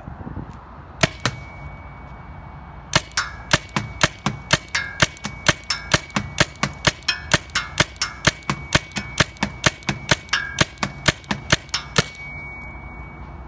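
Tacamo Storm paintball marker firing: two quick shots about a second in, then a steady string of shots at about three a second for roughly nine seconds before stopping.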